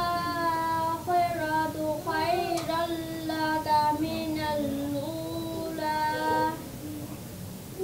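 A young girl's solo voice chanting unaccompanied in long held melodic notes, with a quick ornamented run in the middle. Her voice stops near the end.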